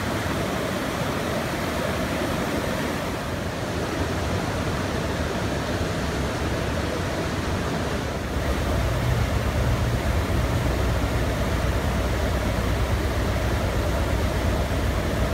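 Whitewater rapids rushing over rocks, a steady, dense rush of water. It grows deeper and a little louder about halfway through.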